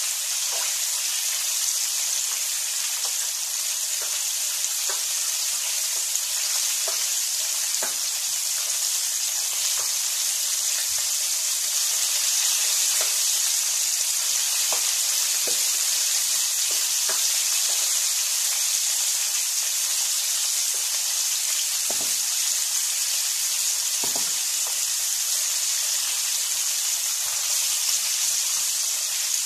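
Flour-coated chicken pieces deep-frying in a pan of hot oil: a steady sizzle with scattered small pops and crackles.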